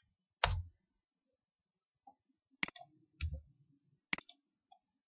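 A few sharp computer mouse clicks, four spread over a few seconds, the first, about half a second in, the loudest, with a dull thump under it.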